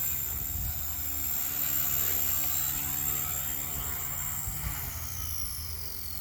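Blade 150S electric RC helicopter's motor and rotors whining steadily at a high pitch, then falling in pitch from about four and a half seconds in as the helicopter spools down at the end of the flight.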